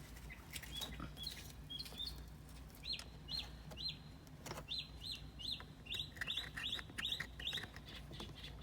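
A bird chirping over and over in short, high notes, about three a second from about three seconds in. A few faint clicks come through as well.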